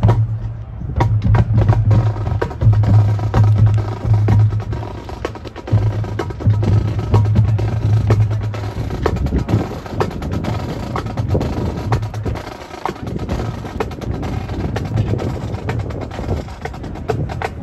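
Marching band percussion warming up: many quick, sharp taps and drum strikes at an irregular pace, with a low tone that comes and goes.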